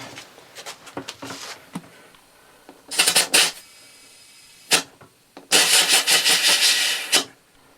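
Compressed air hissing in bursts through an air chuck into a tubed lawn tractor tire to seat its bead: a short burst about three seconds in, a sharp click, then a longer burst of nearly two seconds. Lighter scraping and knocks from handling the tire come before.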